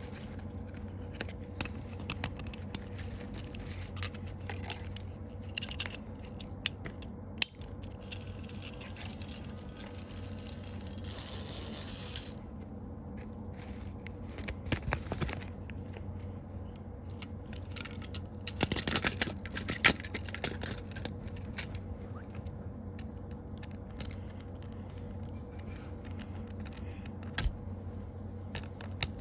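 Scattered clicks, scrapes and rustles of packaging and a toy being handled, busiest about two thirds of the way in, over a steady low hum.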